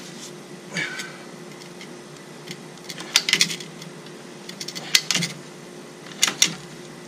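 Ratcheting PVC pipe cutter clicking in short bursts as it is squeezed through a white PVC pipe, a few clicks at a time every second or two, over a faint steady hum.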